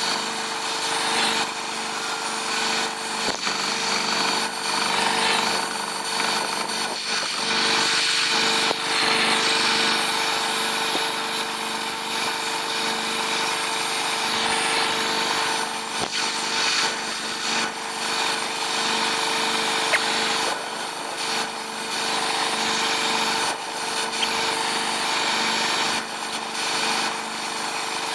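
A power tool running steadily with a loud grinding hiss and a constant hum underneath.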